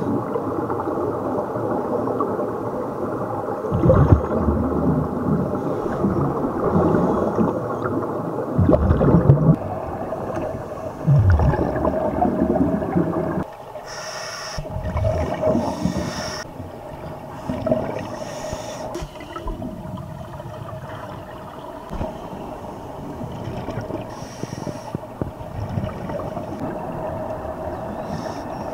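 Underwater sound of scuba regulator breathing: rumbling surges of exhaled bubbles and short hissing inhalations, over a steady hum. The bubble surges are loudest in the first half.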